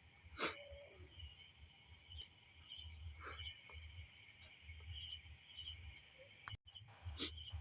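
Crickets chirping at night in short repeated trills over a steady high insect drone, with two brief knocks, one about half a second in and one near the end.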